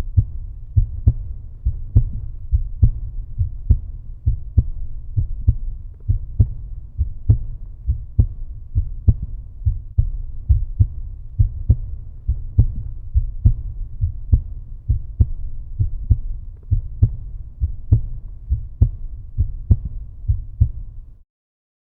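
Heartbeat, a steady low double beat repeating about once a second, which cuts off suddenly near the end.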